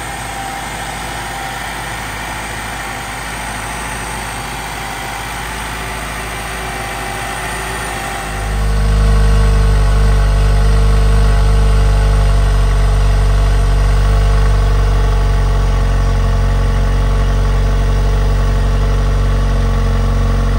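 Jeep Wrangler 4xe's 2.0-litre turbocharged four-cylinder idling on a cold start with its stock intake. It is heard first at the engine bay, then about eight seconds in it jumps much louder and deeper, heard at the exhaust tailpipe.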